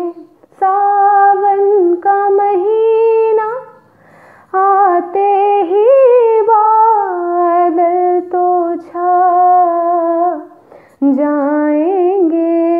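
A woman singing a ghazal with no accompaniment, in long held, gliding notes with a few short pauses between phrases.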